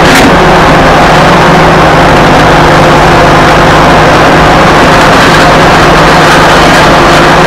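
John Deere 450C crawler dozer's diesel engine running at a steady pitch while the machine drives over dirt, loud and close.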